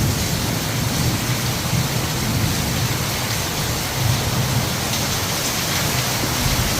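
Heavy rain pouring down steadily, a dense even hiss with a deep rumble beneath it.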